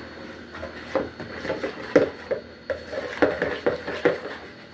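A stirring spoon mixing chopped vegetables and other stuffing ingredients in a large mixing bowl: irregular knocks and scrapes of the spoon against the bowl, several a second.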